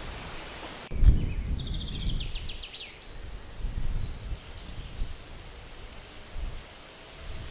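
Gusts of wind rumbling on the microphone with leaves rustling, and a bird singing briefly about a second in: a quick trill of repeated high notes lasting about two seconds.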